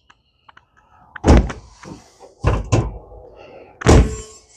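Four heavy thumps and knocks, the loudest about a second in and near the end.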